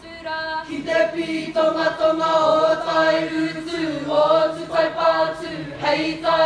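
Māori kapa haka group of school students, girls and boys, singing together in sustained, held notes.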